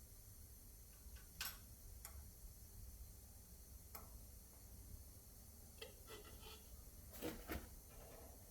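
Faint, scattered clicks and knocks of tools being handled, likely while changing the cutter knives, over a low steady hum. A few single clicks come in the first four seconds, then a short cluster about six seconds in and the loudest pair of knocks about seven seconds in.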